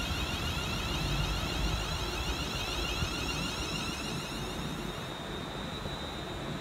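London Northwestern Railway Class 350 Desiro electric multiple unit pulling away, its traction motors whining in several rising tones that fade about five seconds in, over a steady low rumble of wheels on the rails.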